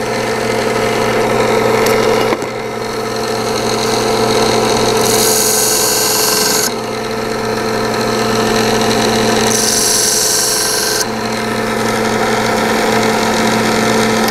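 1x30 belt sander running steadily with a leather strop belt, its electric motor humming, while a knife blade is drawn along the belt to polish a Scandi edge. Two longer passes of the blade add a hiss of about a second and a half each, a few seconds apart.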